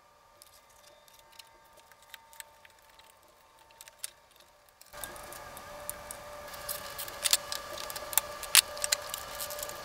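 Small clicks and rattles of hands handling wiring, plastic trim and a screwdriver in an engine bay, over a faint steady hum. About five seconds in the background hiss and hum become suddenly louder, and a few sharper clicks stand out near the end.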